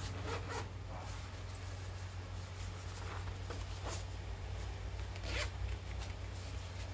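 The zipper of a small black fabric carrying pouch for a DJI Mic wireless microphone is drawn open in several short pulls.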